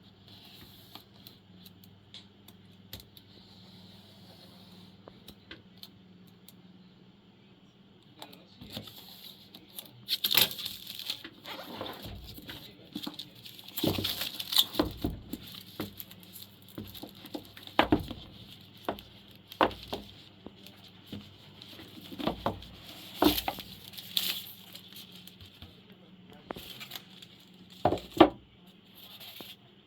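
Handling of a mechanical keyboard and its packaging: irregular knocks and clicks with rustling and crinkling. It is faint for the first eight seconds, then the clicks come scattered and uneven, a few of them sharp and loud.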